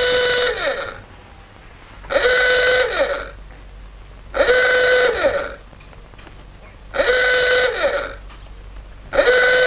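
Lifeboat station klaxon sounding a call-out in repeated blasts about a second long, roughly every two and a half seconds. Each blast holds one steady, loud note with a short downward slide as it cuts off. The alarm is summoning the crew to the boathouse.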